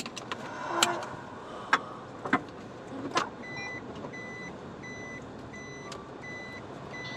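A few clicks and knocks, then from about three and a half seconds in a van's reverse-gear warning beeper sounds steadily, about two beeps a second, as the van is put in reverse to pull out.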